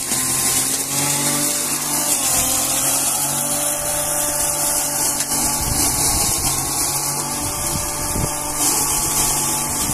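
Electric straw chopper (drobilka) with a 3 kW, 3000 rpm motor running, a steady whine with a high hiss as dry straw is fed in and shredded into chaff. The whine dips slightly in pitch about two seconds in as the motor takes the load of the straw.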